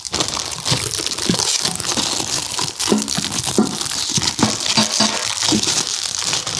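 Clear plastic bag crinkling and rustling without a break as it is pulled and worked off a stainless steel mixing bowl.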